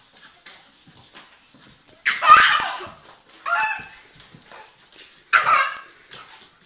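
A baby laughing in three loud bursts, about two, three and a half, and five seconds in.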